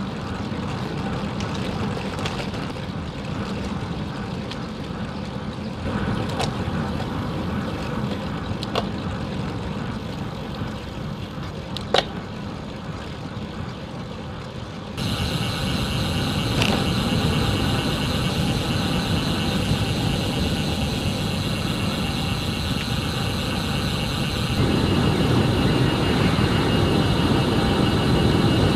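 Wind rushing over the camera microphone and road-bike tyres rolling on tarmac, a steady rumble with a few sharp clicks in the first half. The tone shifts abruptly about halfway, and the rumble grows louder near the end as the bike coasts downhill at speed.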